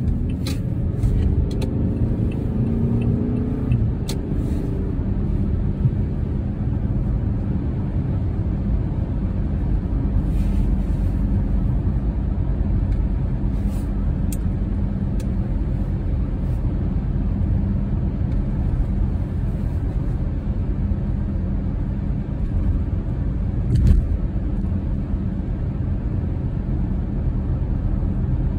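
Steady low rumble of a car driving on icy, slushy pavement, tyre and road noise heard from inside the car. A few faint clicks, and one short thump about 24 seconds in.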